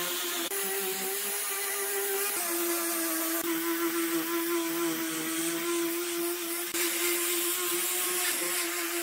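Angle grinder with a sanding disc running against end-grain wood: a steady motor whine over a hiss of sanding. The pitch shifts slightly a few times.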